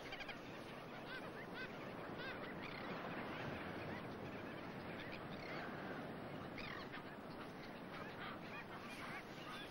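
Busy breeding colony of birds, many calling at once: short, overlapping calls over a constant din.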